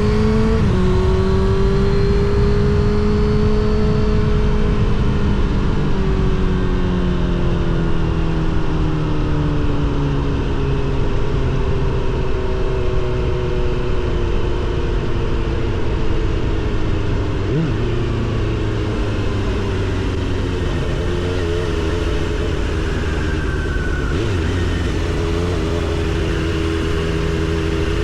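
Suzuki GSX-R750 SRAD inline-four through a Yoshimura R77 exhaust, running under way. Its note breaks briefly about half a second in, then sinks slowly over the next ten seconds and settles into a lower, steadier drone. It rises a little near the end.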